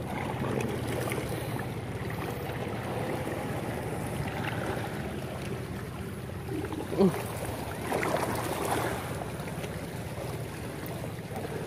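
Steady outdoor wash of wind and sea water on a rocky shoreline, with a short faint murmur about seven seconds in and a brief rustle a second later.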